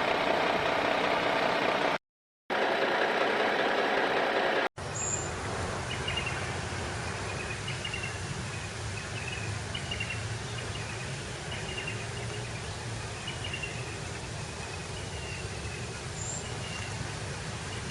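A small motor running steadily, with a brief dropout about two seconds in. After an abrupt cut about five seconds in, a quieter low hum continues, with short faint chirps repeating about once a second.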